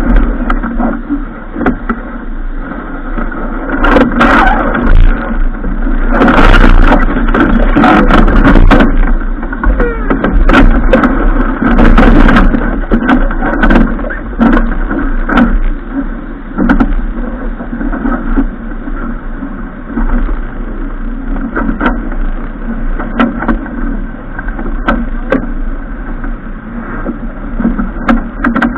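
Continuous rushing noise aboard a racing sailboat under way, with many short clicks and knocks scattered throughout.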